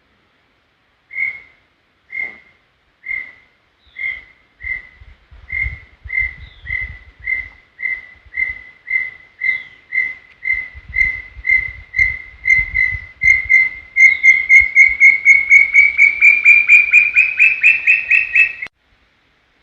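Brown tinamou singing: a long series of single whistled notes, at first about one a second, then speeding up steadily and rising slightly in pitch into a fast run that stops abruptly near the end.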